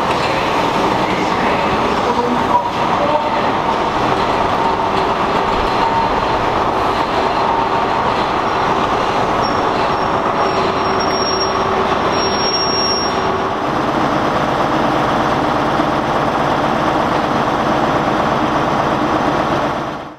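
CrossCountry InterCity 125 high speed train moving through the station: the coaches rumble past on the rails over the steady drone of its Class 43 diesel power cars. The sound eases a little about two-thirds of the way through and cuts off abruptly at the end.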